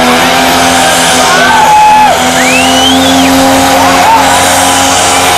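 Modified diesel pickup engine held at steady high revs under full load, pulling a weight-transfer sled. Its drone stays at one pitch throughout, with a brief rising and falling whistle about halfway through.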